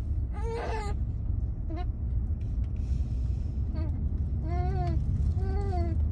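Wind buffeting the microphone as a steady low rumble, with a young child's whining cries: a rising call about half a second in, then short rising-and-falling cries about once a second from about four and a half seconds on.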